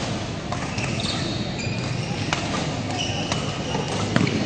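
Badminton rally: sharp racket strikes on the shuttlecock, several over a few seconds, with short high squeaks of shoes on the court floor.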